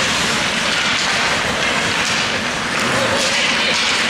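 Ice hockey rink ambience: a steady hiss-like wash of skates on the ice, with spectators' voices mixed in.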